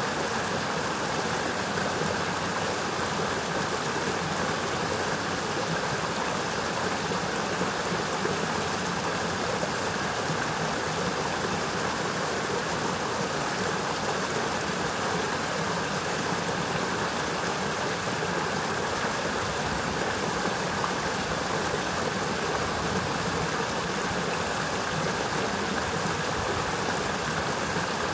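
Forest brook rushing as it tumbles downhill: a steady, unbroken rush of water.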